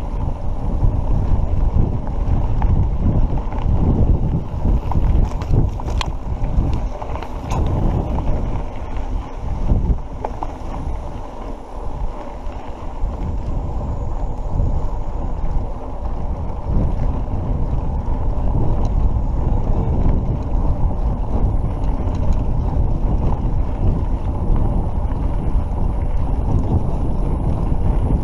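Wind buffeting a handlebar-mounted action camera's microphone while a mountain bike rolls along a rough dirt road: a steady low rumble that swells and dips, with a few faint ticks.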